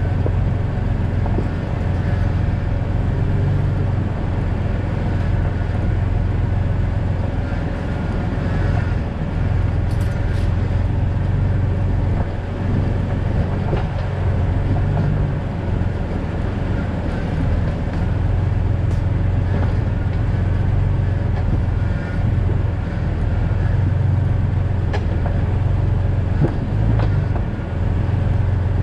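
2000 Jeep Cherokee XJ being driven, with a steady low rumble of engine and road noise and a few short clicks or knocks scattered through it.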